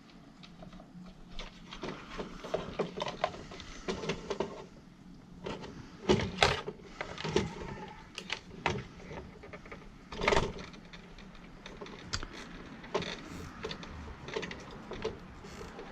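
Irregular clicks, taps and knocks of hands handling small tools and parts, with two louder knocks about six and ten seconds in.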